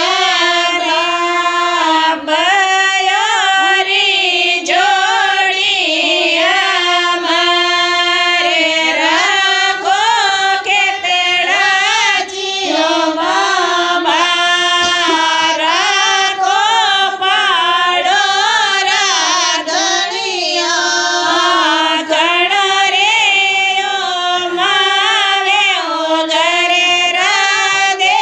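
Women's voices singing a traditional Marwari devotional song (ratijoga geet): a continuous, gliding, ornamented melody with no pauses.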